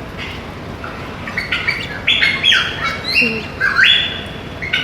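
A bird squawking: a run of short, harsh calls, starting about a second in and coming one after another.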